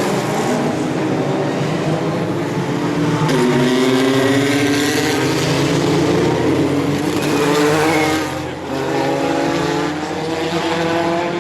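Historic Formula 1 race cars' engines at high revs, the pitch climbing repeatedly as the cars accelerate through the gears, with a brief drop in loudness near the end before it picks up again.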